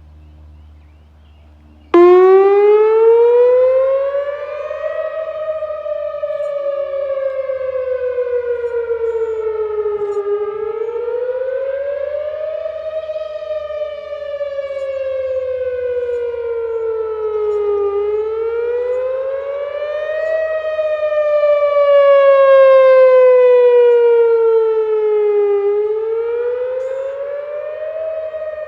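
Whelen WPS 3016 electronic outdoor warning siren starting suddenly about two seconds in and sounding its wail tone during a siren test. The pitch climbs for a couple of seconds and then falls more slowly, repeating about every eight seconds.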